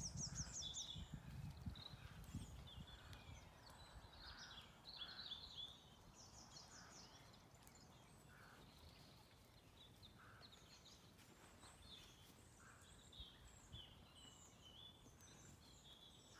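Faint birdsong: small birds chirping and twittering in quick high phrases, with a short lower note repeating about once a second. A low rumble underneath fades after about six seconds.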